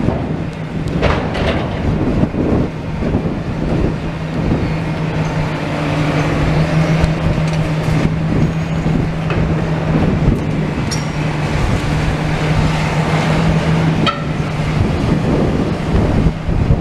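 Demolition excavator's diesel engine running steadily under load while clearing debris, with scattered knocks and clatters of rubble.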